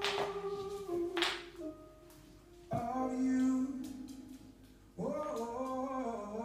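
Music of long held sung or hummed notes, the tune moving to a new pitch about every two and a half seconds, with two short noisy rushes in the first second and a half.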